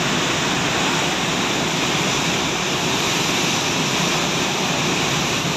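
Floodwater pouring through a reservoir dam's open spillway gates and churning below them: a loud, steady rush of water.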